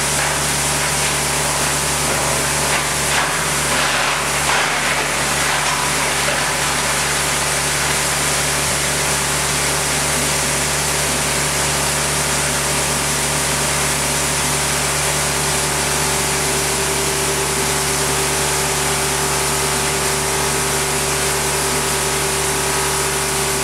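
Dreher S 34/52 SRV granulator (plastic cutting mill) running, a steady mechanical hum and hiss, with a spell of rougher, crackly noise about three to six seconds in.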